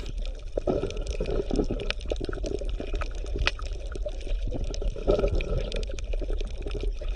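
Underwater ambience: water bubbling and gurgling, with many small irregular clicks and pops.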